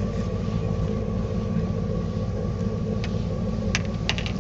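Boat engine running steadily with a low hum, with a few short sharp clicks in the last second or so.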